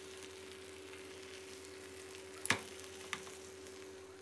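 Marinated pork neck sizzling faintly as it fries in a nonstick Teflon pan over low heat, under a faint steady hum. Two light knocks come about half a second apart past the middle, the first louder.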